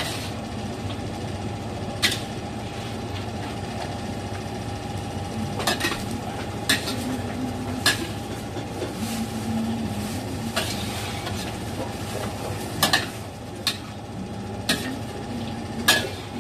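Duck pieces being stirred in a large metal wok, the spatula scraping and clanking against the pan at irregular moments, about nine sharp knocks, over a steady background hum.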